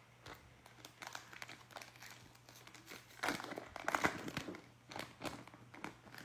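Foil wrapper of an NBA Hoops basketball card pack crinkling and tearing as it is ripped open, in irregular crackles that are loudest about three to four seconds in.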